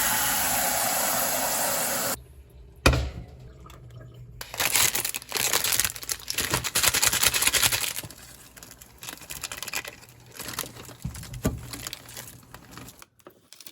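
A steady rushing hiss that cuts off sharply about two seconds in, then irregular rustling and crinkling of plastic or foil packaging being handled and opened, with small clicks.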